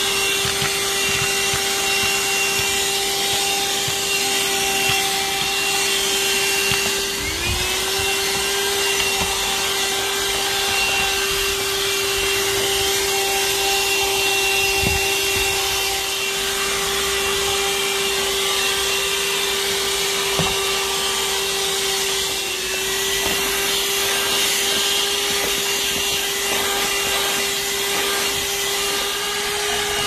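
Bullsone PowerMax Dual Action corded car vacuum running steadily, a high motor whine over a rush of air, as its nozzle works over carpet and floor mats. Twice the motor's pitch sags briefly and climbs back.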